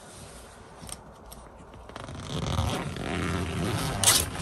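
Fabric rustling and a zipper being pulled, starting about halfway through, with a sharp click near the end.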